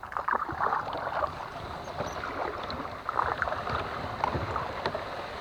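Water splashing and dripping around a kayak, a run of small, irregular splashes from paddle strokes or hands trailing in the water.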